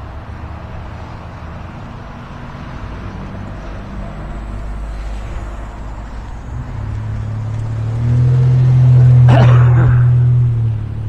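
Strong gusty wind buffeting the microphone, a low rumble that swells and is loudest from about eight seconds in until about ten and a half, with a brief sharp higher sweep near the peak.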